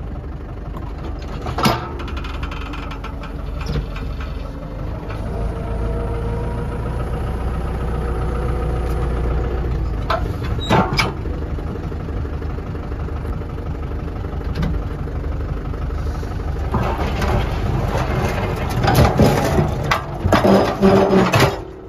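Lovol 504 tractor's diesel engine working under load, its pitch and level rising and falling, while its rear blade digs stones out of the ground. Sharp clanks about two and eleven seconds in, and loud clattering and scraping near the end.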